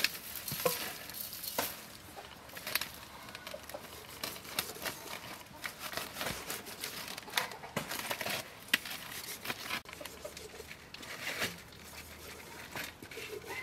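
Hands rubbing and turning a whole raw chicken in an aluminium bowl, with irregular soft knocks, scrapes and rustles, and a cleaver cutting into the bird.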